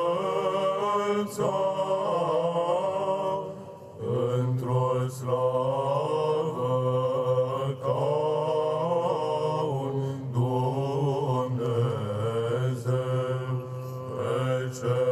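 Byzantine chant from a choir of church cantors (psalts): a slow, ornamented melody sung over a held low drone (the ison), with a short break about four seconds in.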